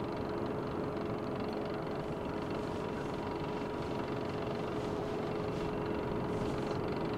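A sailboat's inboard diesel engine running steadily under way, a constant drone with a steady hum.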